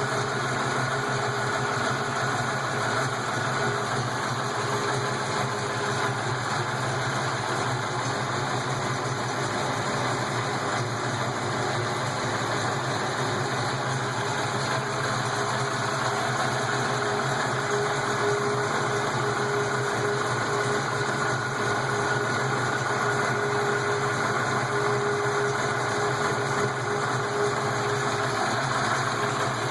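331 V8 engine idling steadily early in its warm-up from a cold start, with its valve lifters noisy.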